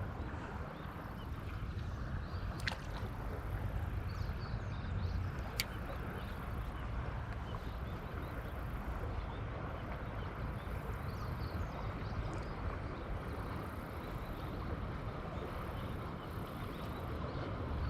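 Steady rushing of flowing river water, with a couple of brief faint clicks.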